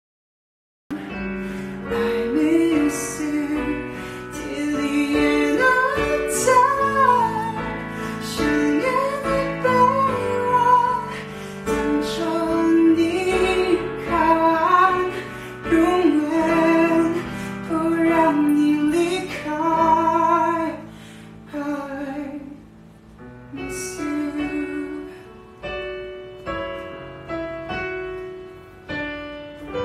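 A man singing a slow ballad with piano accompaniment, starting after about a second of silence. The voice stops about two-thirds of the way through, and the piano carries on alone.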